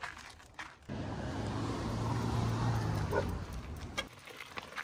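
A motor vehicle's engine hum with road noise, swelling and then cutting off, lasting about three seconds from about a second in.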